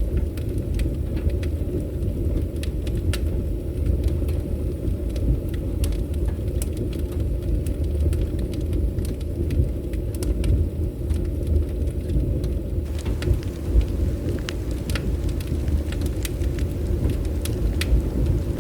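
Bonfire burning, wood crackling with scattered sharp pops over a steady low rumble.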